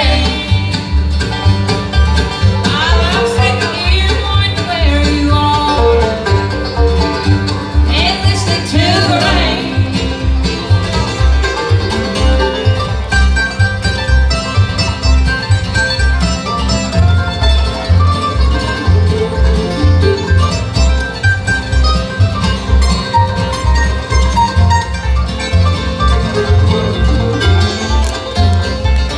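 Bluegrass band playing, banjo and guitar over a steady low bass beat, with sliding melody notes a few seconds in and again near the ten-second mark.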